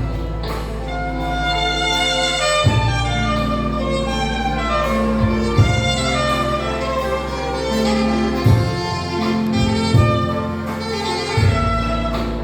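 Live band playing an instrumental piece: a lead melody over held bass notes, with a drum hit every few seconds.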